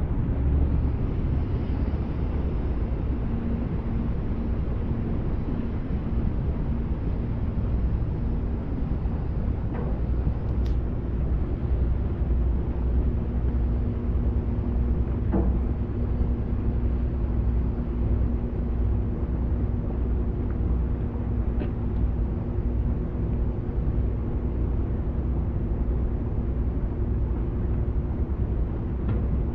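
Passenger ferry's engine running at steady cruise, heard on board: a constant deep rumble under a low, even hum.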